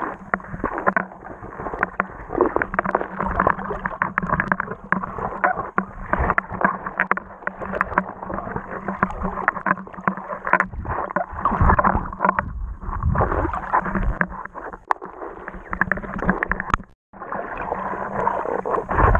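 Muffled sound of water heard through a camera held underwater: irregular gurgling and crackling as water moves around the camera, over a steady low hum. The sound cuts out briefly near the end.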